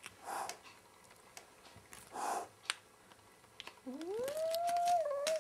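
Tuxedo kitten hissing twice, then giving a long rising growling yowl near the end, a defensive display at its own reflection taken for a rival cat; a few sharp clicks in between.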